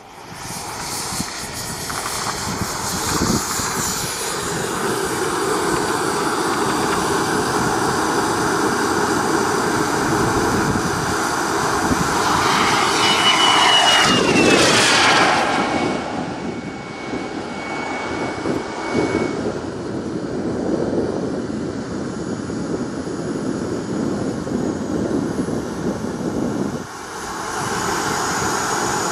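Small turbine engine of a Skymaster BAE T-45 Goshawk model jet in flight: a steady turbine whine over a rush of air. Loudest a little before halfway, when a high whine falls in pitch as the jet passes low.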